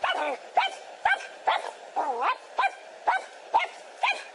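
A small dog barking over and over, about two high-pitched barks a second.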